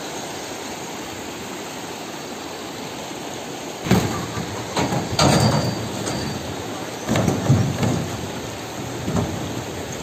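Rushing river water, then from about four seconds in a series of heavy footsteps thudding and clanking on the iron deck of a narrow footbridge.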